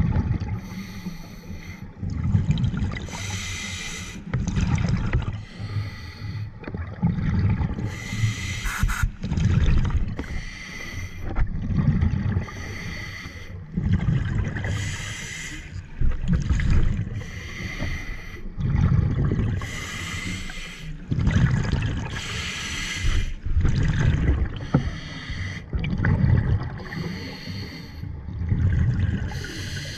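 Scuba diver breathing through a regulator underwater: a hissing inhale, then a rumbling rush of exhaled bubbles, repeating every few seconds.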